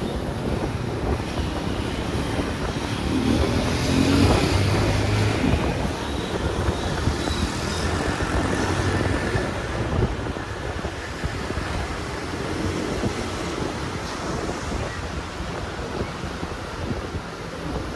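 Wind buffeting the microphone over steady road and engine noise while riding along in traffic, with the engine hum swelling a little about four seconds in.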